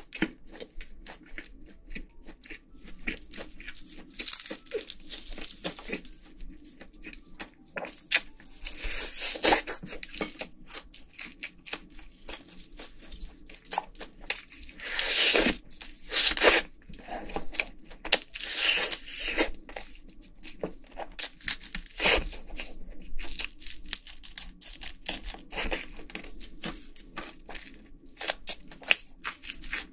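Close-up eating sounds of crispy Korean fried chicken: crackling bites and crunching chews, with meat being torn, in irregular clusters and several louder crunches along the way.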